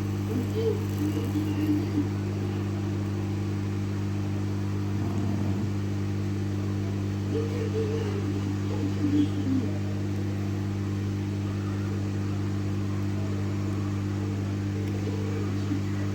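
Hot-air rework station blowing steadily, a constant even hum, as heat is applied to desolder a charging port from a circuit board.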